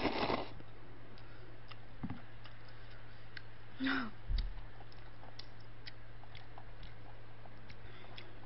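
A mouthful of instant black-bean noodles slurped in at the start, then chewing with small wet mouth clicks scattered through.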